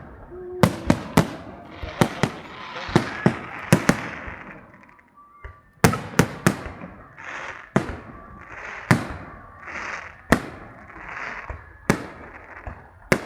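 Fireworks salute: aerial shells bursting in quick, irregular succession with crackling between the bangs. There is a short lull about five seconds in, then the bursts resume.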